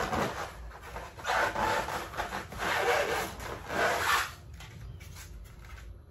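Styrofoam packing rubbing and scraping against the box as it is pulled out, in three loud rubbing strokes, then quieter handling after about four seconds.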